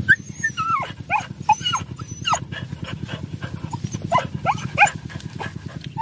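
Dogs whining and yipping in short, bending cries, many in quick succession, as they dig for rats. Underneath runs a steady, rapidly pulsing low engine drone.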